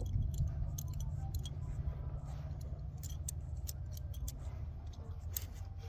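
Scattered light metallic clicks and clinks from handling battery cable terminals and hand tools, over a steady low hum.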